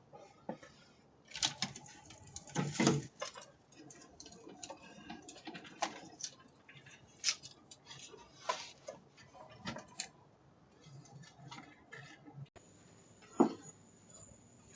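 Scattered clicks, knocks and rattles of things being handled, heard through a doorbell camera's small microphone, with a cluster of louder ones about two seconds in. Near the end a faint steady high hiss comes in.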